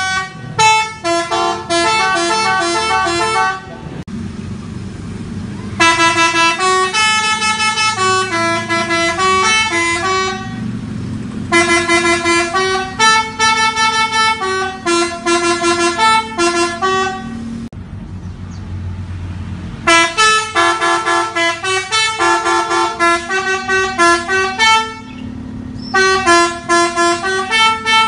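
Telolet musical truck horn playing its melody in runs of quick, stepped notes. There are about five runs, with short pauses between them where only a low rumble is heard.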